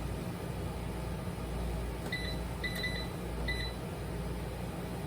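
Air fryer's control panel beeping as its time and temperature are set: four short beeps, one a little longer, over a steady low hum.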